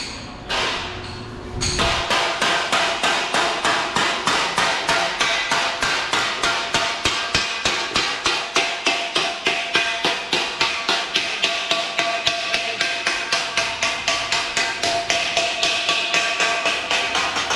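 Steady, rapid hammering on metal, about four blows a second, each blow ringing, after a couple of separate knocks at the start.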